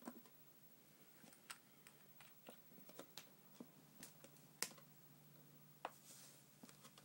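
Light, irregular clicks and taps of handling on a wooden tabletop as a nail polish bottle and its brush cap are put away and bare feet are set down, about a dozen in all, the loudest about four and a half seconds in, with a brief rustle about six seconds in.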